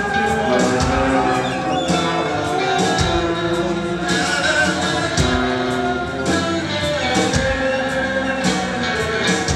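Live rock band playing a passage of a song: drum kit, electric bass, guitar and keyboards, with a woodwind holding long notes over them.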